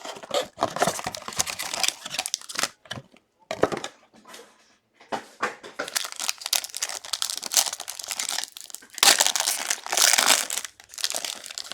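Plastic wrapping on a sealed trading-card box and pack being torn open and crumpled, in irregular crackling bursts with short pauses between them.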